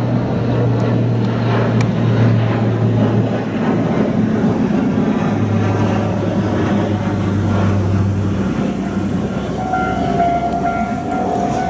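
DE11 diesel-hydraulic shunting locomotive's V12 diesel engine running, its low note shifting in pitch a couple of times. A steady higher tone joins about ten seconds in.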